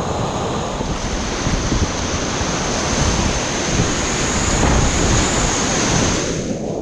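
Loud, steady rush of river whitewater from a weir and rapid, with wind buffeting the microphone as a low rumble. The upper hiss thins out near the end.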